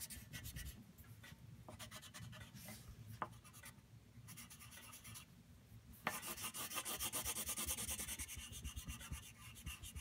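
Water-soluble crayon scratching across paper in rapid back-and-forth colouring strokes. The strokes are fainter at first and louder from about six seconds in.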